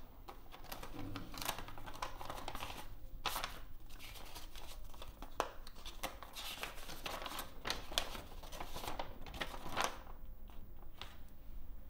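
Paper envelope being opened and a letter pulled out and unfolded: irregular crisp rustling and crinkling of paper, thinning out near the end.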